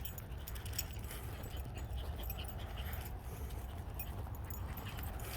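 Dog collar tags jingling as the dogs move about, over a steady low rumble.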